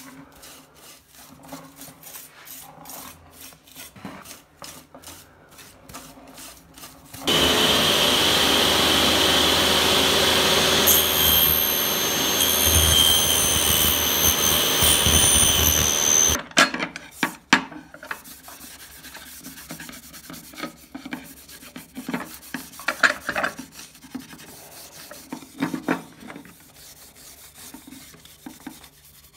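Repeated rubbing strokes on wood, like hand-sanding or filing. About seven seconds in, a power tool starts and runs steadily with a high whine for about nine seconds, then cuts off suddenly, and the rubbing strokes go on again.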